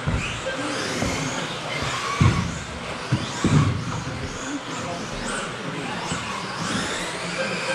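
Several 1/10-scale electric 2WD off-road RC buggies racing, their motors whining up and down in pitch over one another as they accelerate and brake, with a few short low thuds.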